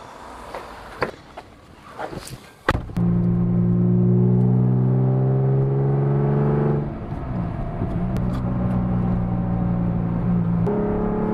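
Porsche 911 flat-six with a full straight-through exhaust, starting up after a few faint clicks about two and a half seconds in, then running with a strong steady note. The note drops a little in pitch and level about four seconds later, then rises slightly again near the end.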